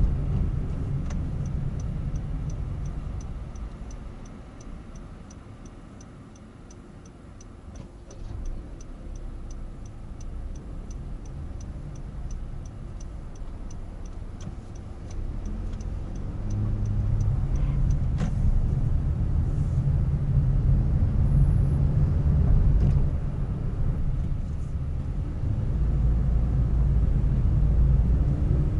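Honda N-Box being driven, heard from inside the cabin: low road and engine rumble that swells in the second half. For roughly the first half there is a regular light ticking, about three ticks a second. A few single clicks come later.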